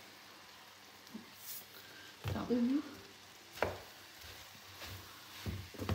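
Minced meat with onions and green peppers sizzling faintly in a frying pan as it is stirred with a wooden spoon, with one sharp knock about three and a half seconds in.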